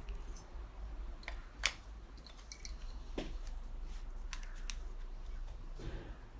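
Scattered light clicks and clinks of small metal engine parts and tools being handled on a workbench during a moped engine teardown, the sharpest click about a second and a half in.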